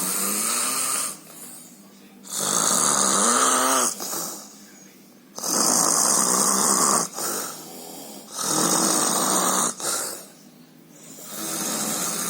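A sleeping person snoring loudly: five long snores, one about every three seconds, with quieter breathing between them.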